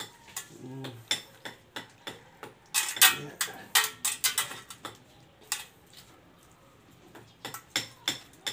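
Hands massaging a raw whole chicken in marinade in a metal tray: wet squelching and short clicks from the meat and tray, thickest and loudest about three to four seconds in and again near the end.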